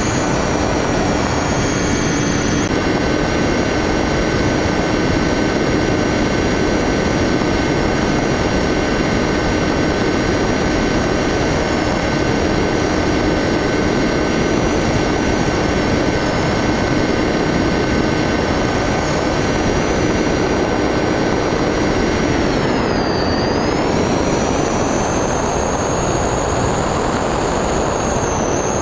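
Onboard sound of a radio-controlled model plane in flight: a steady whine from its motor and propeller over loud wind rush. About 23 seconds in the whine drops in pitch and climbs back over a few seconds.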